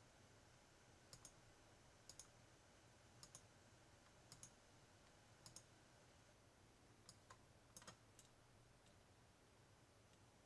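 Faint computer mouse clicks, mostly in quick pairs, about one pair a second, as map layers are clicked off one by one; they stop a little after two thirds of the way through.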